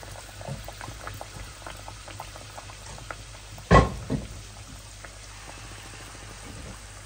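Handesh fritters of rice-flour batter deep-frying in a pan of hot oil, the oil bubbling and crackling steadily with many small ticks. A sharp knock comes a little past halfway, with a lighter one just after it.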